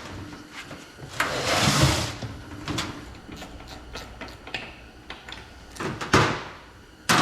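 Workshop handling noises: a scraping slide starting about a second in, scattered knocks and clicks, and a loud bang near the end.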